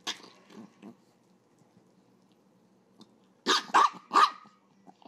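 Small angry Chihuahua barking: one sharp bark at the start and two softer yaps just after, then three loud quick barks in a row about three and a half seconds in.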